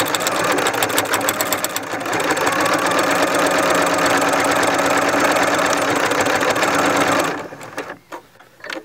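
Janome electric sewing machine running at a steady speed, stitching through several layers of fabric, and stopping about seven seconds in. A few faint knocks follow.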